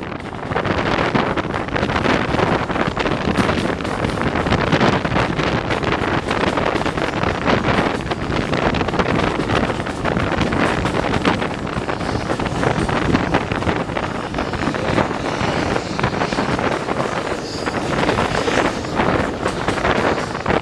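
Wind buffeting the microphone, held out of the window of a moving railway carriage, over the steady running noise of the coach on the track. The wind noise largely drowns out the steam locomotive at the head of the train.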